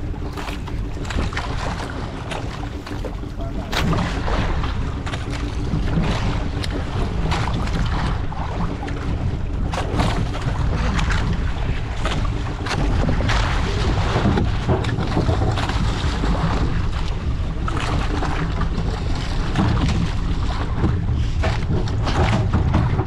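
Small fishing boat's motor running steadily on the open sea, with wind rumbling and buffeting on the microphone.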